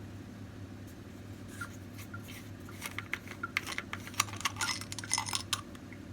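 Parts of a Staresso portable espresso maker being handled: a run of irregular hard clicks and clinks, busiest about halfway through, over a steady low hum.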